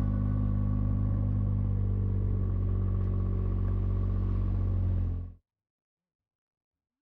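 A vehicle engine running steadily at an even pitch, cut off abruptly about five seconds in.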